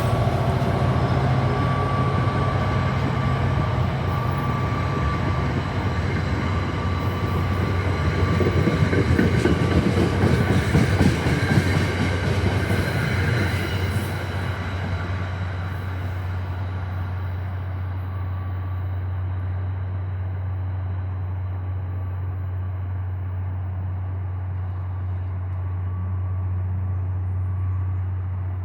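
NJ Transit commuter train running past on the rails, loudest about 8 to 14 seconds in and then fading away as it recedes. A steady low hum continues underneath.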